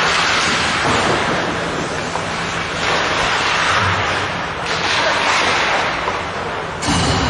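Ice hockey arena ambience during live play: a loud, steady rushing noise that swells and eases every second or two, with no clear single event.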